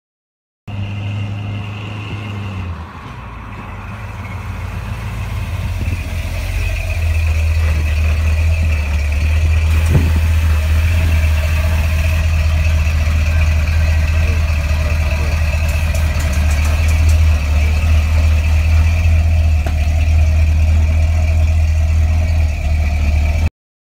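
A Chevy 350 small-block V8 breathing through Flowmaster mufflers, idling steadily with a deep low note. It grows louder over the first several seconds, then holds steady.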